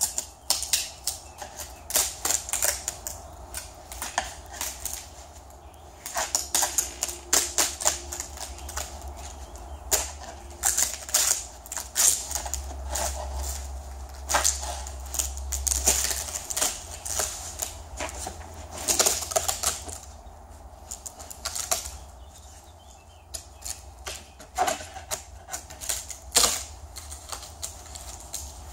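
Repeated bursts of quick, sharp clicks and taps as a scraper blade is worked into the seam between a fibreglass mould flange and its plug, prying the transom section loose.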